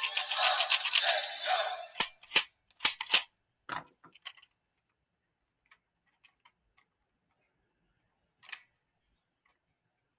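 Electronic sound effects from a toy battle arena's speaker, which cut off about two seconds in, followed by a quick run of sharp plastic clicks and taps, then faint occasional ticks.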